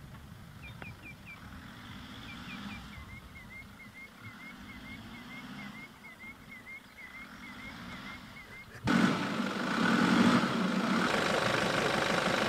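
Low vehicle engine rumble with a small bird chirping over it, about three short chirps a second. About nine seconds in, a much louder steady rushing noise suddenly cuts in.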